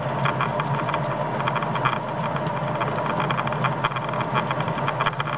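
Automotive relay wired to self-oscillate, buzzing steadily as its contacts chatter rapidly open and shut while it drives an ignition coil. No spark comes, and the relay is suspected of switching too fast to make one.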